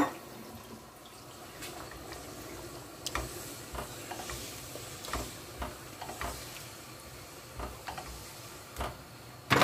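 Spoon stirring a thin tomato and minced-meat sauce in a pot: wet sloshing with irregular soft knocks of the spoon against the pot, and a louder knock near the end.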